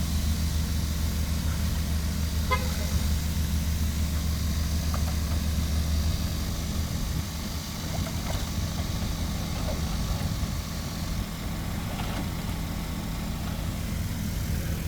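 A steady low engine hum that eases off slightly about six seconds in, with a short burst of rapid clicking about two and a half seconds in.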